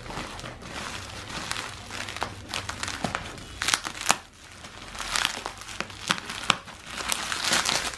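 Plastic packaging, a courier mailer bag and bubble wrap, crinkling and rustling as it is pulled and peeled off a parcel by hand, with irregular sharp crackles and snaps, the loudest about four seconds in.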